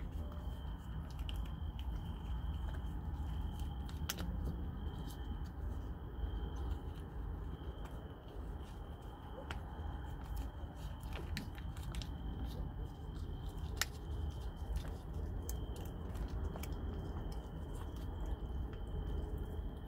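A kitten chewing and licking wet cat food from a pouch: irregular small wet clicks and smacks throughout, over a steady low rumble and a faint steady high whine.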